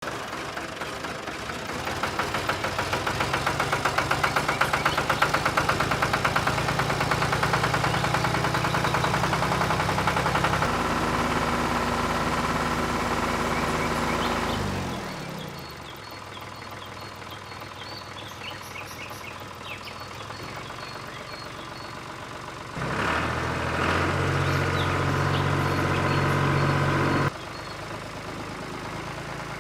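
A small machine's motor running with a steady pulsing beat. Its pitch shifts once, then winds down and dies away about halfway through. It starts again later and cuts off suddenly a few seconds after.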